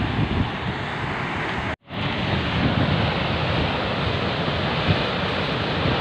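Düden Waterfall pouring off the cliff into the sea: a steady rushing of falling water, with wind buffeting the microphone. The sound cuts out for a moment just under two seconds in.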